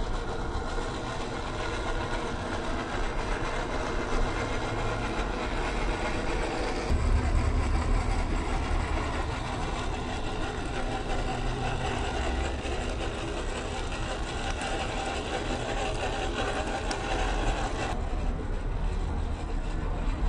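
Small electric RC crawler driving over gravel: the motor and gearbox whine with a steady noisy rumble of the tyres on the ground. The sound changes abruptly about seven seconds in and again near the end.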